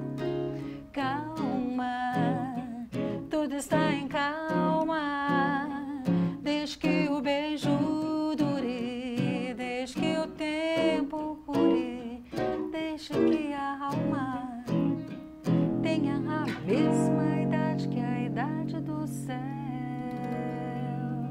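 A woman sings with wide vibrato over an acoustic guitar and an electric guitar playing together live. About sixteen seconds in, the song slides up into a final held chord that rings out.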